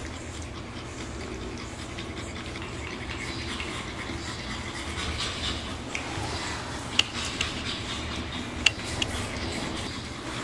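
Pug puppies snuffling and grunting over a steady low hum, with a few sharp clicks in the second half.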